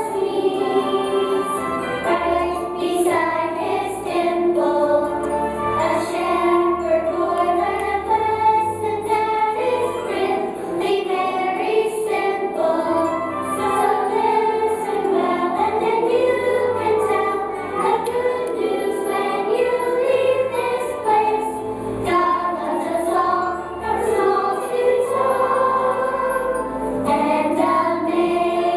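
Choir singing a song over instrumental accompaniment with a bass line.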